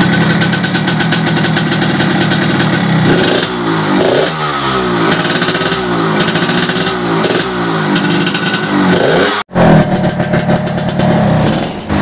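Yamaha RX-King two-stroke single-cylinder motorcycle revving through a reworked ('bobok') exhaust tuned for a crisp, raspy 'garing ngorok' note. It holds a steady rev at first, then blips up and down repeatedly. The sound cuts out for an instant about nine and a half seconds in, then the engine runs and revs again.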